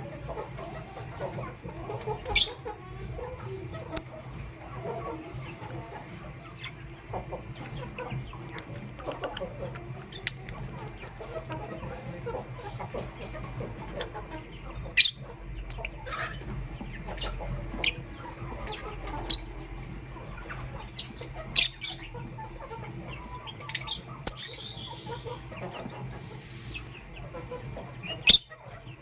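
Lovebirds chirping: a dozen or so sharp, high, short chirps scattered through, over a constant low chattering in the background.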